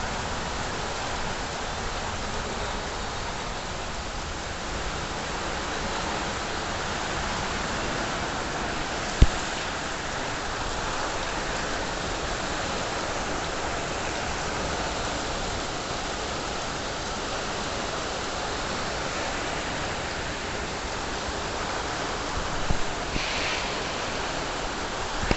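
Hailstorm: heavy rain and hail falling in a steady hiss, with one sharp knock about nine seconds in.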